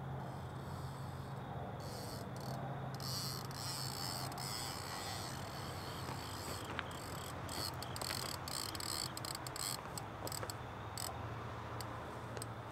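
Crickets and other night insects chirping in high-pitched pulsing trains that start and stop, over a steady low hum.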